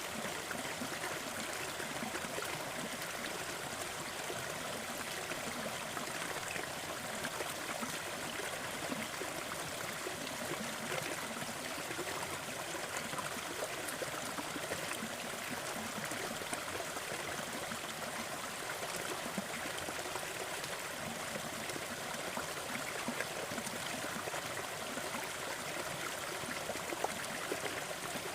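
Small forest waterfall and stream: water splashing and trickling in a steady, even rush.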